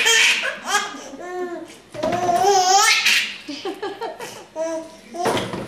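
Seven-month-old baby laughing in bursts of short repeated 'ha ha ha' sounds, with a longer wavering laugh about two seconds in.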